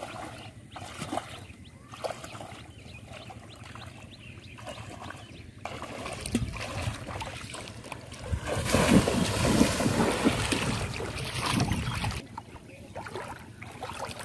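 Water sloshing and splashing as a man wades through shallow floodwater. The splashing is loudest for about four seconds in the middle, where he strides through the water, and stops abruptly about twelve seconds in. Lighter sloshing and small splashes come before and after.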